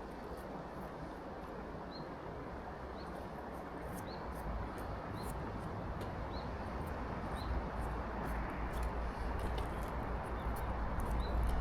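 A short, high chirp repeated about once a second, typical of a small bird calling, over a steady hiss, with a low rumble that grows louder toward the end.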